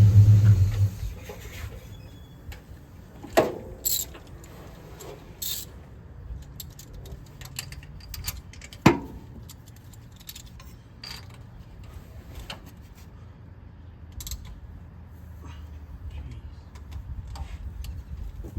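Hand tools clinking and knocking against metal in a truck's engine bay while spark plugs are changed, with scattered sharp clanks, the loudest about nine seconds in. A loud, low steady drone stops abruptly about a second in.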